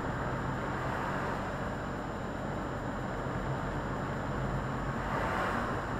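Cab noise of a Volvo FH articulated lorry on the move: a steady diesel engine drone with tyre noise on the wet road, swelling briefly near the end as an oncoming car passes.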